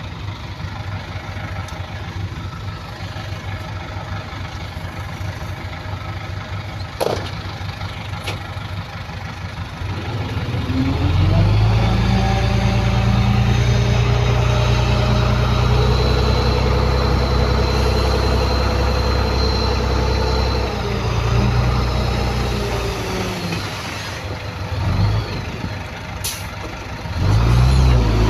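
Heavy diesel engine of earthmoving machinery running at low revs, then revving up about ten seconds in and holding high for about ten seconds before dropping back, with another short rev near the end. A couple of sharp clicks stand out over it.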